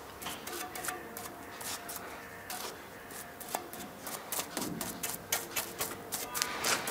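A stiff bristle brush scratching and dabbing glue onto painted steel tubes, brushing on the adhesive for fabric covering in quick, uneven strokes that grow busier near the end. Faint steady tones sit underneath.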